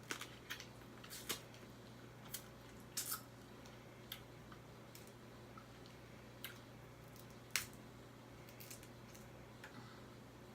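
Crab-leg eating sounds, faint: scattered sharp clicks and snaps of shell being handled and cracked, with soft chewing and mouth sounds. The loudest snaps come about three seconds in and halfway through.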